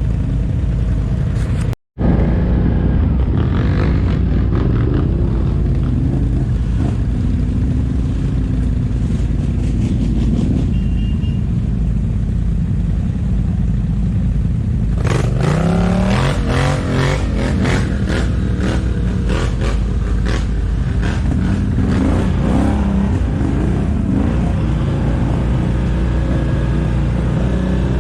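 ATV engine running and revving up and down over a rough trail, with a strong low rumble. The sound cuts out for an instant about two seconds in. From about halfway through there is dense rattling and clatter.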